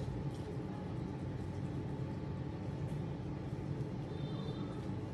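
Steady low rumble of background noise, even in level throughout, with a few faint clicks and a faint brief high squeak about four seconds in.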